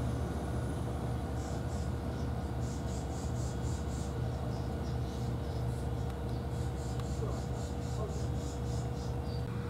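Steady low outdoor hum with a faint steady tone above it, and faint high chirps repeating three or four times a second in two runs, starting about a second and a half in and again past the middle.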